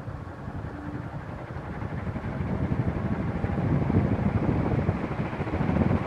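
Palco Carib ceiling fan running, its 48-inch metal blades making a rush of moving air that grows steadily louder.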